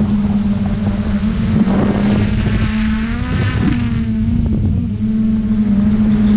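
Quadcopter drone's propellers humming steadily, heard over rough wind noise on the drone's microphone. In the middle the hum's pitch wobbles and bends as the motor speeds change, then it settles again.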